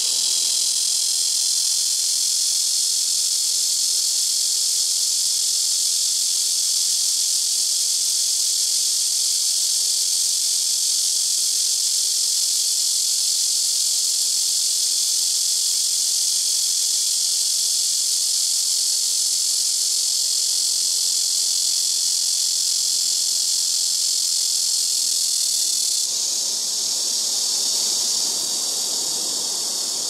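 Black cicada (Cryptotympana atrata) singing: a loud, unbroken high-pitched buzz that shifts in tone and dips slightly about four seconds before the end.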